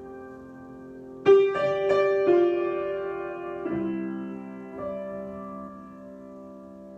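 Solo piano improvising slowly: a held chord rings, then a loud chord is struck about a second in with a few notes added right after, followed by quieter chord changes that are left to ring and fade.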